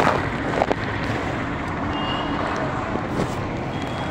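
Steady street traffic noise from road vehicles, with a couple of sharp knocks near the start and a short high beep about two seconds in.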